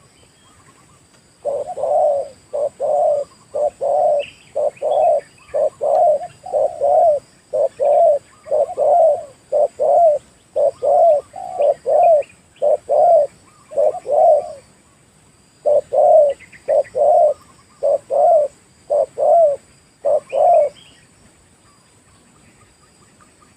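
Spotted dove cooing a long run of short, low coos, about one and a half a second, which stops a few seconds before the end. This is a trained decoy dove calling to lure wild doves.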